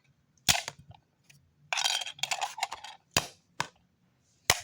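An old plastic alarm clock being broken apart: four sharp cracks or knocks, with about a second of scraping and rattling between the first and second.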